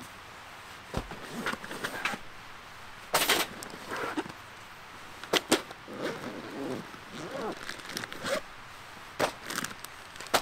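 Camping gear being handled and packed into a nylon backpack: sharp clicks and knocks of hard items and fittings, with fabric rustling in between.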